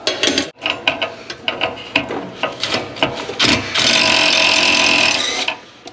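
Wrench work on the exhaust flange nuts: rapid ratchet clicks and knocks of metal tools, then a powered wrench runs steadily for about a second and a half near the end.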